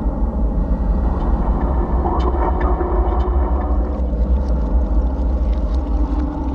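A steady deep rumbling drone, with a faint wash of tones above it and scattered faint clicks.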